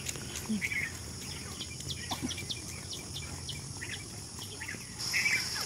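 Birds chirping in short, quick calls scattered throughout, over a steady high insect drone that grows louder near the end.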